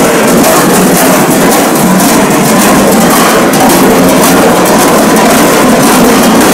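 Large bells worn on the belts of Glöckler runners, many ringing at once in a loud, steady clanging jangle as the runners move.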